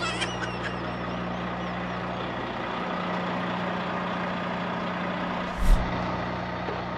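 Volvo VNL 760 diesel semi-truck idling steadily with an even low hum. A brief thump comes about five and a half seconds in.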